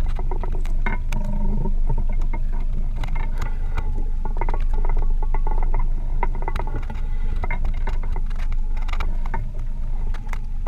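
Steady low wind-and-water rumble on a small open boat at sea, with scattered short clicks and knocks throughout.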